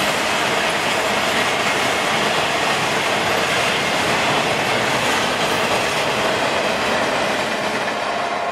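Double-stack intermodal freight cars rolling past: a steady noise of steel wheels on the rails that eases slightly near the end.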